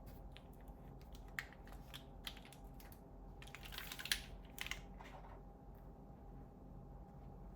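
Mechanical keyboard typing on Gateron Summertime v2 switches in a Merisi Ottantaquattro with a polycarbonate plate and GMK keycaps: scattered keystrokes, then a quick flurry of keys about three and a half seconds in that stops about five seconds in.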